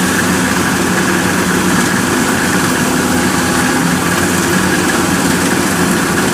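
Kubota DC-108X combine harvester running steadily under load as it cuts rice. It is a constant diesel engine hum with a steady high whine above it.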